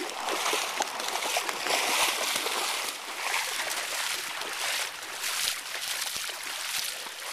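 Floodwater sloshing and splashing steadily as legs wade through knee-deep water.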